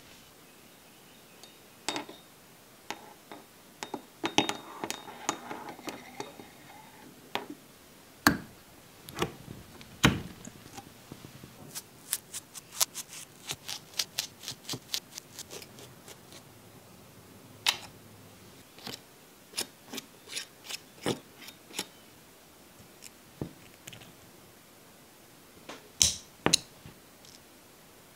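Light clicks and taps of small metal engine parts and steel tweezers being picked up and set down on a cutting mat. A soft rustling scrape comes a few seconds in, and a quick run of evenly spaced clicks follows near the middle as parts are laid out one after another.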